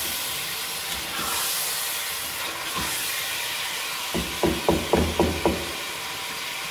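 Chicken pieces sizzling as they fry in ghee and tomato-onion masala in a pot, a steady hiss. A little past four seconds in comes a quick run of about six sharp knocks.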